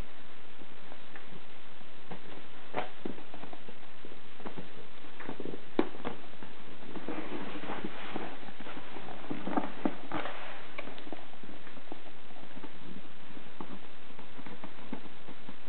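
Cardboard packaging being handled by hand: scattered taps and knocks, one sharper about six seconds in, and a burst of rustling and scraping between about seven and ten seconds in as an inner box is lifted out of the outer carton, over a steady hiss.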